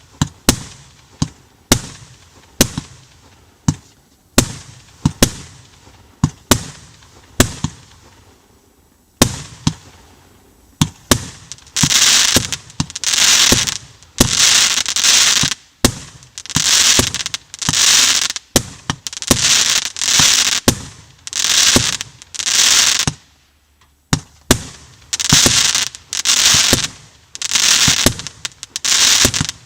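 A 130-shot 30 mm (1.2-inch) firework cake firing in sequence. For the first several seconds sharp shots come about two a second. After a short lull the shells break into long, loud hissing bursts of about a second each, alternating with shots, with one brief pause near the end.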